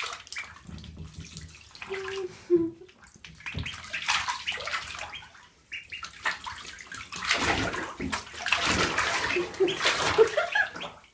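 Ducklings paddling and splashing in a bathtub of water: irregular sloshing and splashing, heaviest in the second half.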